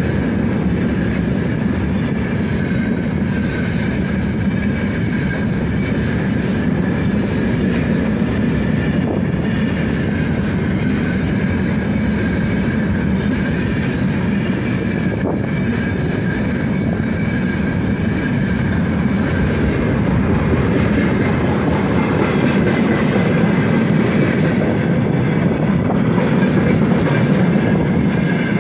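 Freight wagons rolling past at speed: a steady rumble of wheels on rails with a thin, high, steady ringing over it. It grows a little louder near the end as tank cars go by.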